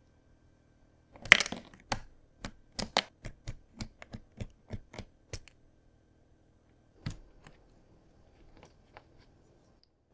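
Keys on a mechanical keyboard clacking: a quick loud cluster of presses about a second in, then a run of single keystrokes at about four a second, and a few softer scattered taps near the end.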